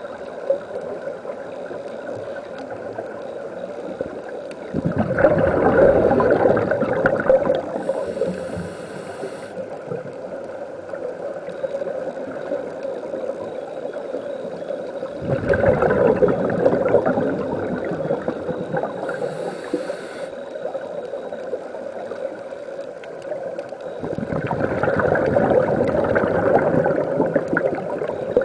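Scuba regulator breathing heard underwater: three long gurgling bursts of exhaled bubbles, about ten seconds apart, each followed a few seconds later by a short high hiss of an inhalation through the regulator.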